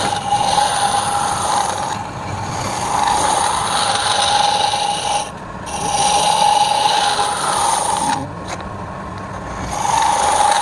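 Wood turning on a lathe, with a turning tool cutting and rasping the spinning wood over a steady hum. The cutting briefly lets up twice, about five and eight seconds in.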